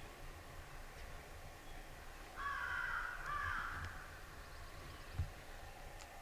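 Crow cawing twice in quick succession, harsh calls about two and a half seconds in, followed by a short knock.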